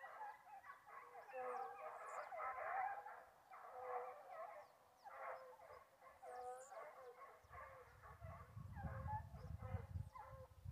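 A distant pack of foxhounds baying in full cry, many long overlapping calls at once, the sign of hounds running on a wild boar's trail. A low rumble joins about three quarters of the way through.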